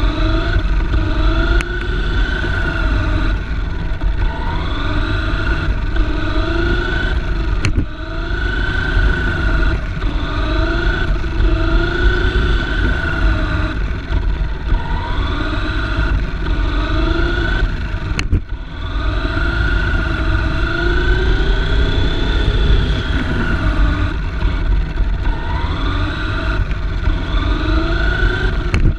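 Electric drive motor and drivetrain of a 1/10-scale F1/10 race car whining, the pitch repeatedly rising and falling as the car speeds up and slows through the turns. Underneath is a heavy low rumble of chassis vibration picked up by the car-mounted camera, with a few sharp clicks.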